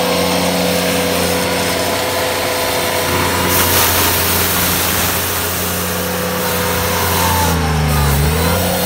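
Ventrac compact tractor's engine running steadily while it drives a rotary broom through snow. Near the end the engine note drops briefly and comes back up.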